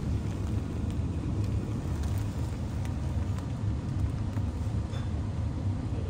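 Gas furnace blower fan running steadily with a low rumble, kept on because the heat exchanger is still hot after the burner was lit and the system shut down.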